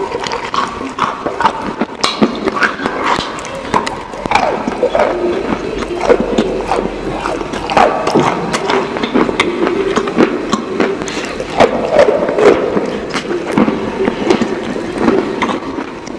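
Close-miked eating of chicken wings: biting and chewing, heard as many quick clicks and crackles throughout.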